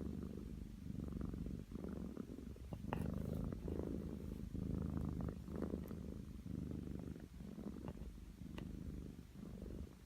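Domestic cat snoring in its sleep: a low, rumbling snore that swells and eases with each breath, about once a second or so. A couple of small clicks are heard, one about three seconds in and one near the end.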